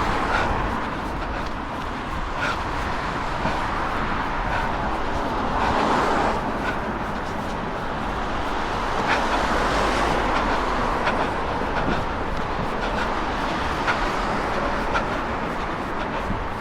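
Wind buffeting the microphone of a body-worn action camera during an outdoor run: a steady rumbling noise that swells twice, with scattered light taps.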